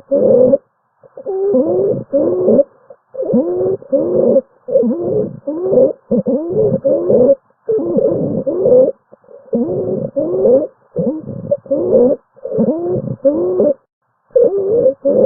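Stridor recording: a musical, crowing breath noise that rises in pitch within each breath, repeating about once a second with short gaps between breaths. It is the sign of a narrowed upper airway.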